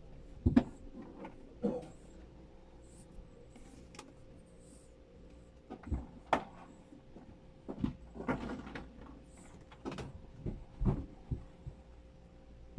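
Senior dachshund snoring and snuffling in its sleep: irregular short breaths, some sharp and one longer and drawn out about eight seconds in.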